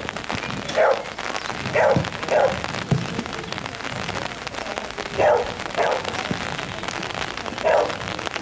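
Shetland sheepdog barking as it runs an agility course: about six short, sharp barks, with a pause of a few seconds in the middle, over a steady hiss.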